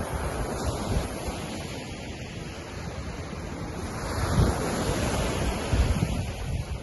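Lake Ontario waves washing against the shore in a steady wash that swells about four seconds in. Wind buffets the microphone with low rumbles.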